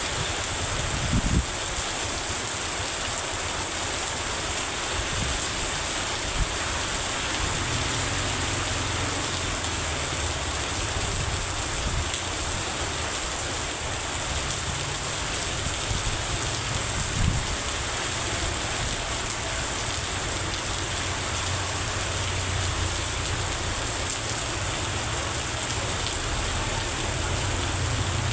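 Heavy rain falling steadily, with a low rumble underneath from about eight seconds in and a few brief knocks.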